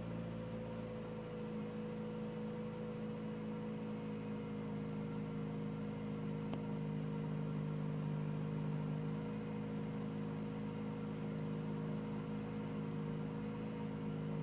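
Toyota Probox petrol engine idling, heard from inside the cabin as a steady hum. The idle dips slightly in pitch over the first few seconds, as the revs settle from about 2,000 rpm to about 1,100 rpm, then holds steady.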